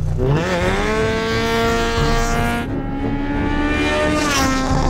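Honda K20A four-cylinder engine in the Civic revving hard as the car accelerates away from a standstill, the pitch climbing through the revs. The pitch drops at a gear change about two and a half seconds in, climbs again, and drops at another change near the end.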